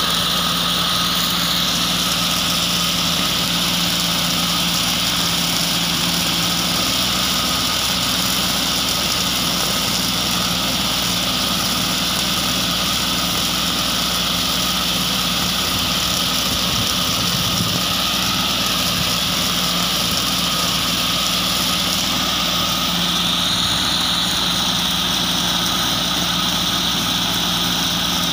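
Compact tractor engine running steadily under load while it drives a rear-mounted rotary grass mulcher through vineyard grass: an even drone with a steady hiss above it.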